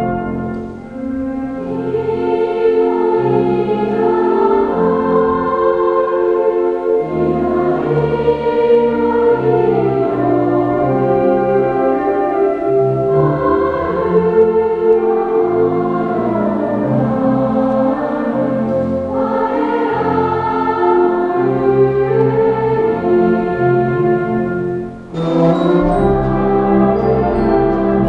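Choir singing a Japanese school song in parts, with instrumental accompaniment; a short break about 25 seconds in before the next phrase starts.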